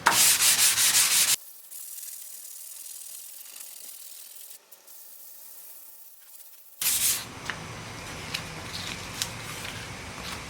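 Sandpaper being rubbed by hand over the cast iron top of a table saw to take off surface rust. Loud, rhythmic back-and-forth strokes for the first second and a half, then a quieter thin hiss for several seconds, then louder scraping with small clicks.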